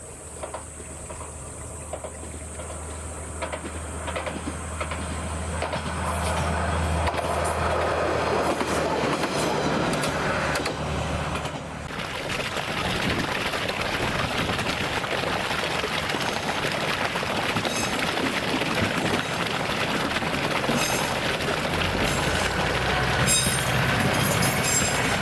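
A train running on the rails: a low steady hum with noise building over the first twelve seconds. At about twelve seconds the sound changes abruptly to steady running noise, with sharp wheel clicks near the end.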